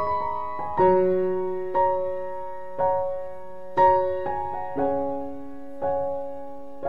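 Slow background piano music: notes and chords struck about once a second, each left to ring and fade.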